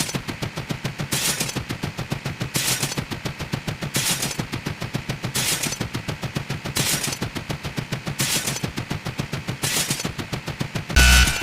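Rapid-fire gunshot sound effect: an even stream of quick pops, with a louder burst about every second and a half.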